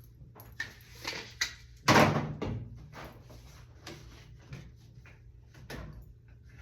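Knocks and clatter of hard objects being handled, with one loud thump about two seconds in and scattered lighter knocks after it.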